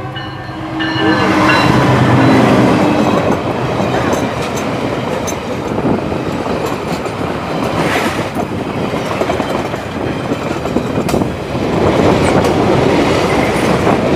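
Freight train passing at close range: a loud, steady rumble and clatter of wagon wheels on the rails, with a few sharp clanks.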